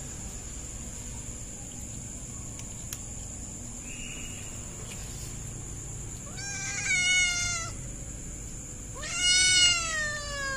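A kitten meowing twice, about two seconds apart, the second meow louder.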